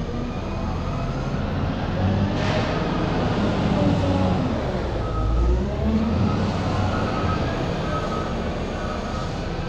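Engine of a loading machine working a pile of sunflower pellets, its revs rising and falling as it pushes.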